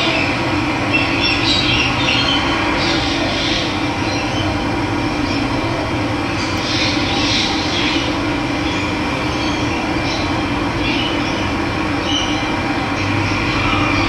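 Steady rush of running water, with birds calling now and then over it.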